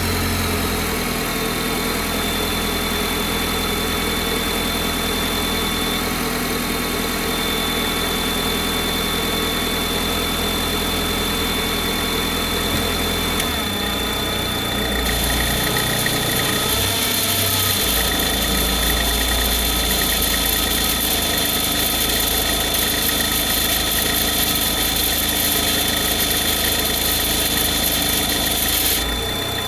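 Engine idling cold, with a thin, steady high-pitched whine over the low hum: the weird noise it makes when cold. About halfway through the low note shifts and a hiss joins in, stopping shortly before the end.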